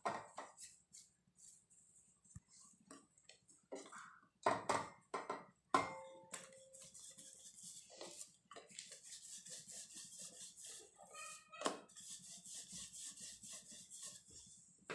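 Wooden rolling pin rolling out a paratha on a round rolling board: a few scattered knocks in the first six seconds, then a steady run of soft rolling strokes from about eight seconds in.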